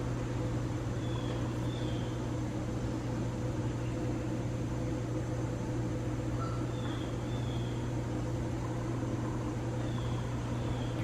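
Hampton Bay Industrial 60-inch ceiling fan running at a middle speed: a steady low hum with room noise. Faint short high chirps come a few times.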